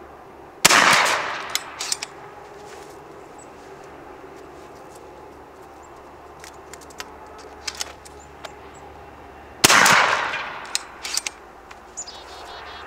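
Two shots from a 28 gauge pre-charged air shotgun firing 7.5 lead shot, about nine seconds apart, each a sharp loud report with a tail that dies away over about a second. A few smaller sharp clicks follow each shot.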